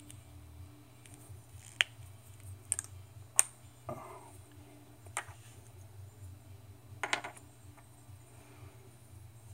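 Scattered sharp clicks and taps from the metal lead holder set and its parts being handled, about five of them, over a low steady hum.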